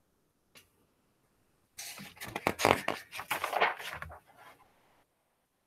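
Hardcover picture book being swung around and its pages flipped: a faint click about half a second in, then a burst of rustling and scraping paper lasting a couple of seconds.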